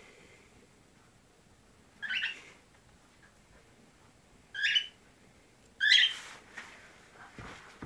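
Tabby kitten mewing three times: short, high-pitched mews spaced a couple of seconds apart, the last the loudest.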